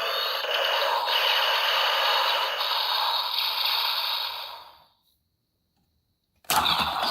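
Electronic hissing sound effect from a transformation-belt toy's speaker, thin with no bass, fading out about five seconds in; after a brief silence a sudden loud sound starts near the end.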